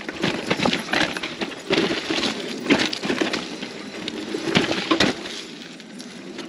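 Gravel bike clattering down a rocky trail slab and over a drop: a fast run of sharp knocks and rattles from the tyres and frame striking rock, with a few harder single hits, easing off near the end.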